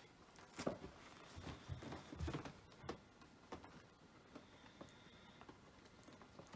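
Belgian Shepherd Groenendael puppy chewing and playing with a toy: soft, irregular knocks, clicks and rustling, busiest in the first few seconds and sparser after.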